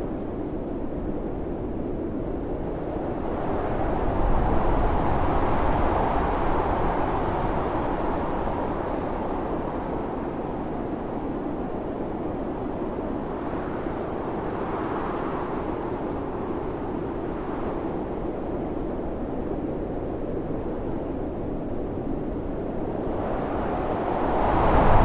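Blizzard wind blowing steadily, swelling into stronger gusts a few seconds in, again around the middle, and most strongly near the end.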